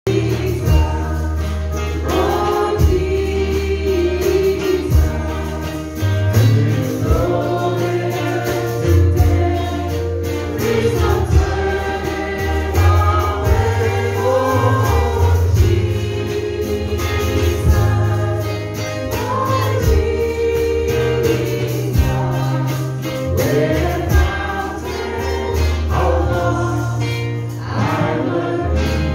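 Gospel song sung by a small group of singers into microphones, with a moving bass line and a steady drum beat underneath.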